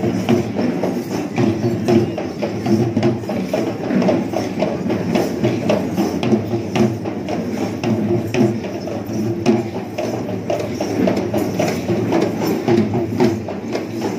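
Traditional Sri Lankan procession drumming: a dense, steady rhythm of many quick, sharp drum strokes that runs on without a break.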